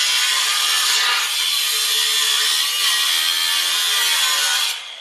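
Angle grinder's cut-off wheel cutting through the steel factory exhaust pipe of a Mustang GT: a loud, steady, high-pitched grinding. It cuts off sharply near the end, and the wheel winds down.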